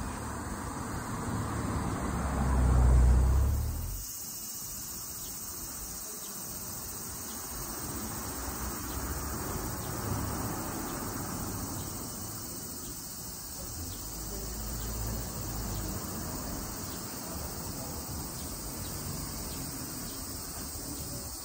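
Insects droning steadily in the trees. A loud low rumble swells and then cuts off about three to four seconds in.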